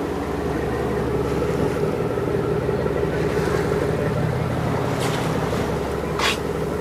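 A boat's engine running steadily, a low even drone, with two brief whooshes of water or wind near the end.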